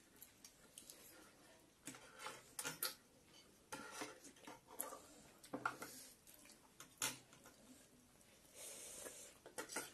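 Scattered light clinks of spoons and forks against bowls, with soft eating noises, as noodle soup is eaten.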